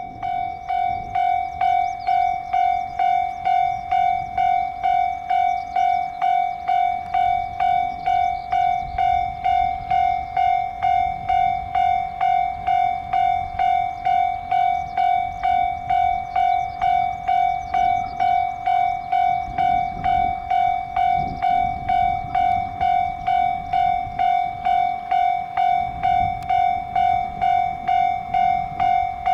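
Japanese railway level-crossing warning bell ringing, an electronic bell tone repeating evenly about twice a second: the crossing is closed for an approaching train. A low rumble runs underneath.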